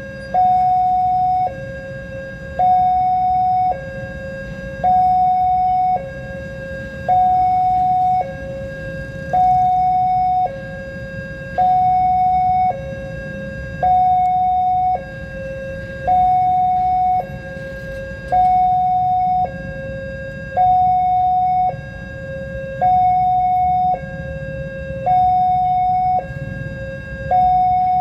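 Railway level-crossing warning alarm sounding a steady two-tone high-low signal, each tone about a second long and repeating evenly, the signal that a train is approaching. A low rumble of waiting motorcycles lies underneath.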